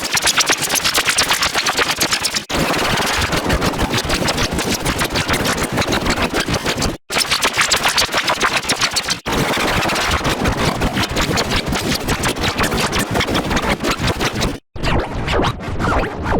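Heavily effects-processed cartoon audio turned into a loud, rapid buzzing stutter, like a motor running, broken by a few short dropouts.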